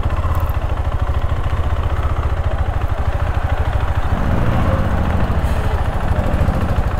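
KTM 390 Adventure's single-cylinder engine running at low revs as the bike rolls slowly, a steady, rapid low throb.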